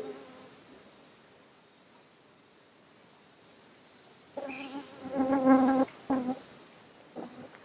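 An insect chirping steadily, short high rising chirps about twice a second, with a louder pitched animal call in a few bursts a little past the middle.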